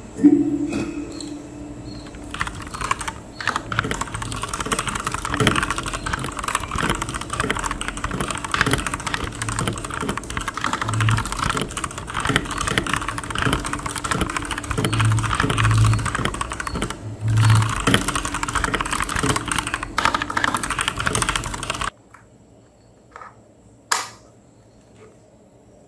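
Fast typing on a Digital Alliance Meca 6 Plus mechanical keyboard: a dense, continuous clatter of key presses with occasional deeper thumps, which stops suddenly near the end, leaving a couple of single key clicks.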